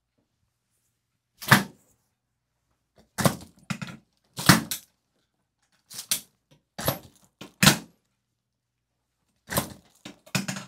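Chiropractic drop table's raised neck headpiece clunking down under the adjusting thrusts: a series of sharp thunks, roughly one to two seconds apart.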